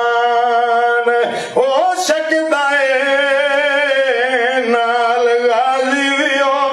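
A man singing unaccompanied in long, drawn-out devotional phrases, holding each note for a second or more with a wavering ornament about four seconds in.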